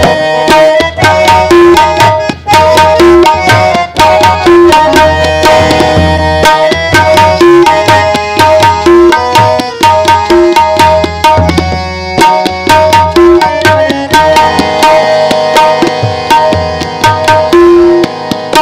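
Tabla played in a quick, steady rhythm of dense strokes, with deep bass strokes from the left-hand drum, over a harmonium holding sustained notes. This is an instrumental interlude of shabad kirtan with no singing.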